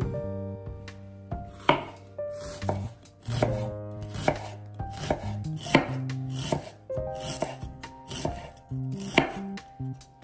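A knife chopping on a cutting board in irregular strokes, about one a second, over soft background music.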